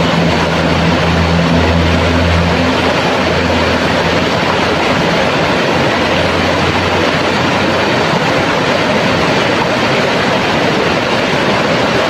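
Shallow, rocky river rapids: water rushing and churning over stones, loud and steady.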